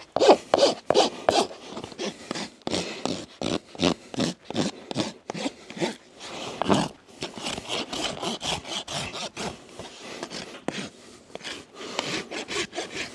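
Farrier's hoof rasp filing around the edge of a horse's hard, dry hoof wall in quick repeated strokes, two to three a second, rounding off the sharp edges.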